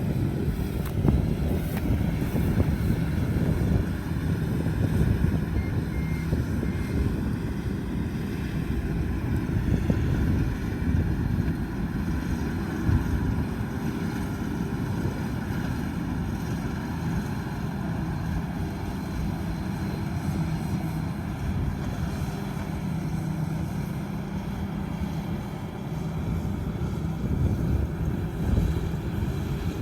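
Rice combine harvester's diesel engine and machinery running steadily, a continuous low mechanical noise.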